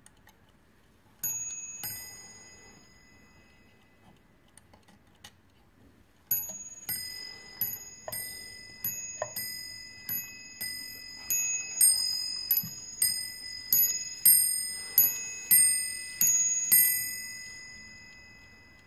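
Warmink Dutch bracket clock striking on its bell: two ringing strokes about a second in, then after a pause a long run of strokes, just under two a second, alternating between two pitches and each left to ring on. Faint ticking of the movement can be heard between the strikes.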